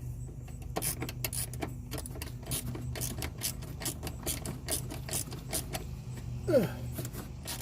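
Hand ratchet wrench clicking in short, uneven runs as a bolt is turned, over a steady low hum.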